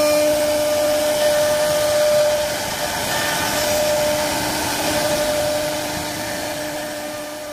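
CNC wood-carving router running steadily: a constant spindle whine over the rushing noise of the cutter in wood, slowly fading in the last few seconds.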